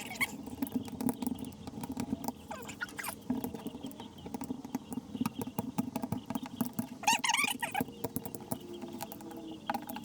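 Window trim being pressed and snapped into the frame around a new glass pane: many light clicks and taps, with a brief wavering squeak about seven seconds in and again near the end.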